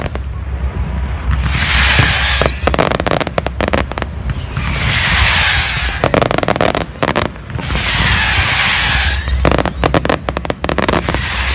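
A fireworks display: clusters of sharp bangs from bursting shells alternate with about four waves of hissing crackle, each lasting a second or two.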